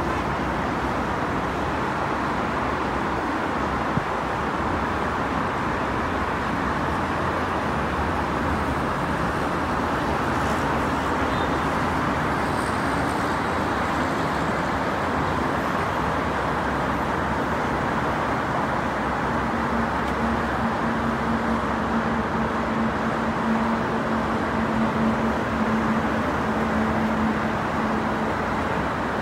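Steady highway traffic noise from many cars and trucks passing on a multi-lane road below. A steady low hum stands out of the rumble for several seconds in the second half.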